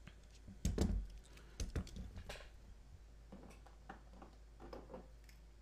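Light clicks and knocks of small diecast metal GoatGuns 1911 pistol models being handled, with a heavier thump about a second in and a quick cluster of clicks shortly after, then a few fainter ticks.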